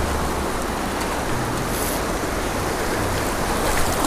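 Fast river rapids rushing over rocks: a steady, even rush of flowing water.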